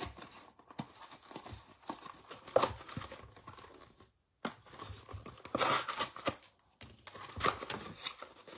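A trading-card hanger box being torn open by hand: irregular tearing and crinkling of cardboard and the pack wrapper, in several bouts with short pauses between them.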